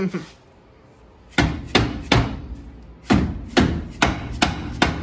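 A two-pound mallet hammering on a car's front brake drum to knock the stuck drum off. It lands about eight sharp blows, each with a short ring: a quick two or three starting about a second and a half in, then a run of five.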